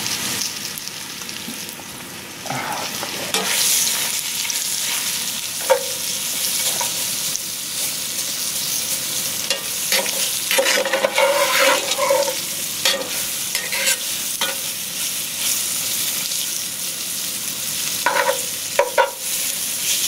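Cornstarch-coated chicken pieces sizzling in hot bacon grease in a cast-iron Dutch oven. A metal spatula scrapes and clicks against the pot as the pieces are stirred, most around the middle and near the end.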